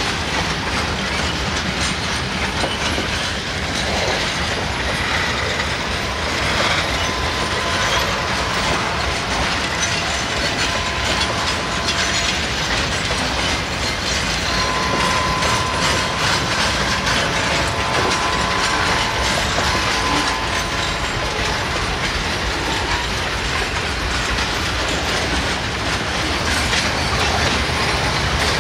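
Long freight train of box wagons and hopper cars rolling past, its wheels clacking over the rail joints. A faint steady high tone sounds through the middle stretch.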